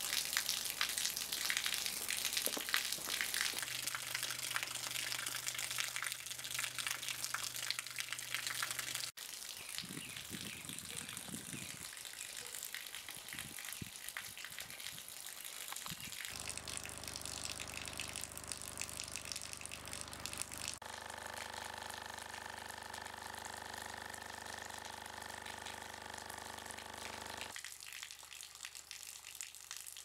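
A thin stream of water pouring from a hose and splashing down, with a steady low hum from the speaker vibrating the hose. The hum changes abruptly three or four times.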